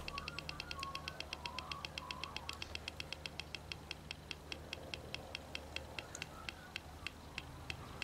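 Clicks from the small speaker of a Funway 1 sound-effects generator, a steady train of ticks that slows from about eight a second to about three. The rate falls as its light-dependent resistor is shaded by a hand and its resistance rises in the dark, moving the effect toward a grandfather-clock tick.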